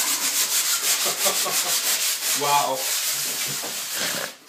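Sandpaper on a hand-held pad rubbed quickly back and forth over a desk top, a rhythmic scratchy hiss of repeated strokes that stops shortly before the end.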